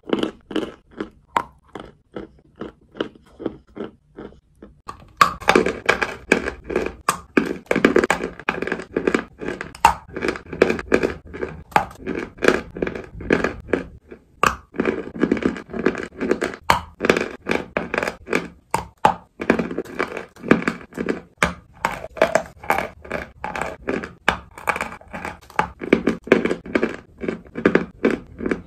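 Crunching and chewing of lumps of chalk: a rapid run of dry crunches and crackles, sparse and quieter for the first few seconds, then dense and louder from about five seconds in.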